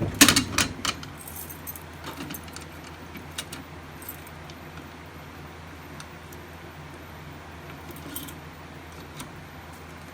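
Keys jangling and clinking for about the first second, then a few faint scattered clicks over a steady low hum.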